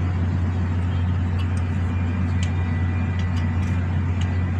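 A steady low engine drone, like a diesel engine running at idle, with a few light clicks over it.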